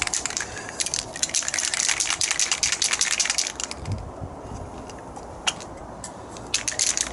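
Aerosol spray cans being picked up and shaken, the mixing balls inside rattling in a quick run of clicks that stops about three and a half seconds in. Quieter handling follows, with a single sharp click near the end.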